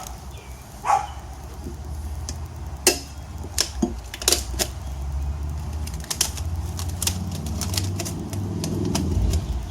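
Tire irons clinking and clicking against a motorcycle's rear wheel rim as the bead of a new tire is levered on by hand, a dozen or so sharp metallic taps over a steady low hum that grows stronger near the end.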